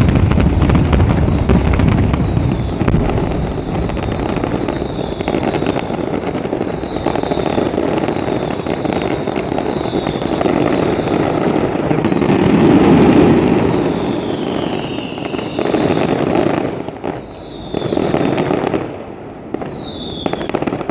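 Fireworks finale: many shells bursting at once in a dense, continuous crackle with low booms, overlaid by short falling whistles every second or two. It swells about two-thirds of the way through, then thins out with pauses near the end.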